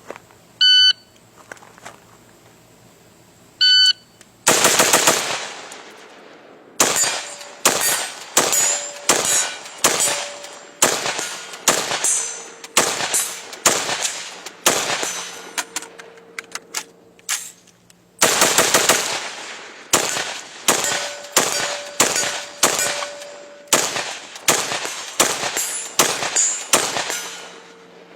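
Two short electronic beeps from a shot timer about three seconds apart, then a .223 AR-15 rifle firing semi-automatic shots in quick succession, each one echoing, beginning less than a second after the second beep. The firing stops for about two seconds around the middle for a magazine change, then resumes and runs on until near the end: thirty rounds in all.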